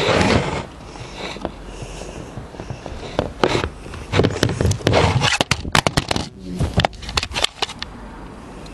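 Handling noise from a camera being picked up and repositioned by hand: rustling and scraping with a run of sharp clicks and knocks, thickest in the middle of the stretch.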